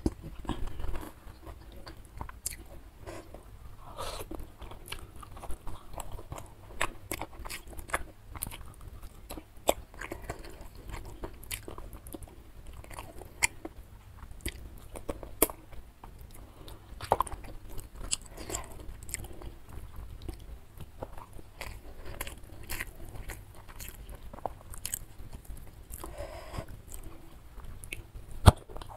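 Close-miked eating sounds of a nasi padang meal: steady chewing with irregular crunches and wet mouth clicks, and a louder bite near the end.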